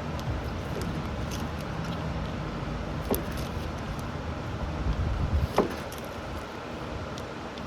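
Steady low rumble of wind or fan noise on the microphone, with a few light metallic clinks and scrapes, the clearest about three seconds in and again a little later, as a transformer is worked apart.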